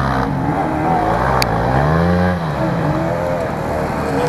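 Several enduro motorcycle engines revving hard over one another, their pitch rising and falling as the riders work the throttle; one engine swells up and falls away about two seconds in.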